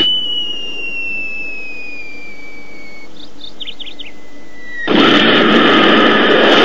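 A cartoon falling whistle, one long tone sliding slowly downward, like a bomb dropping. A few short bird-like chirps follow near the middle, then about five seconds in a sudden loud, dense roar cuts in.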